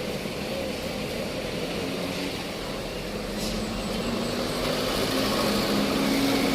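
A vehicle engine running steadily, rising gradually in pitch and loudness over the second half, as if being revved up under load.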